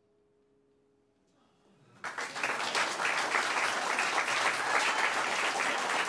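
The last faint notes fade to near silence, then about two seconds in an audience breaks into applause that keeps going steadily.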